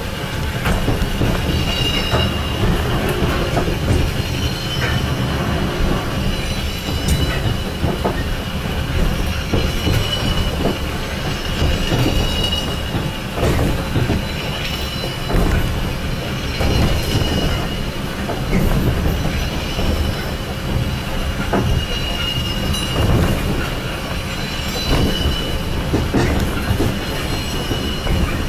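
Ikoma Cable funicular car running on its track, heard from inside the car: a steady low rumble, with brief high squeals that come and go and scattered knocks.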